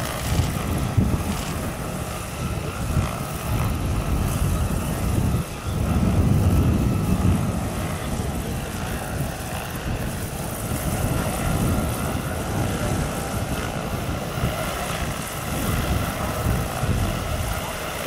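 Electric scale model CH-47 Chinook tandem-rotor helicopter in flight: its two rotors and electric drive running steadily, a low fluttering rotor sound under a thin steady whine, swelling about six to seven seconds in.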